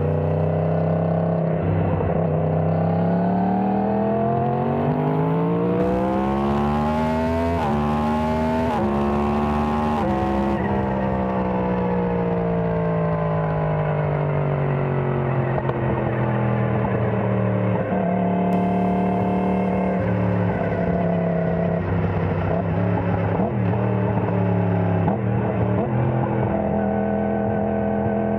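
Yamaha MT-10's 998 cc crossplane inline-four engine, unsilenced sound: revs climbing steadily for about eight seconds with a couple of brief breaks, peaking about ten seconds in, then falling back slowly and holding fairly steady with small rises and dips.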